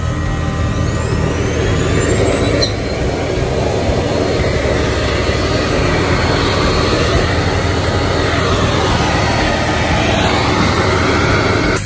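Vacuum cleaner running steadily, its motor whine rising in pitch about a second in and shifting again near the end, as it sucks dust out of an opened iMac.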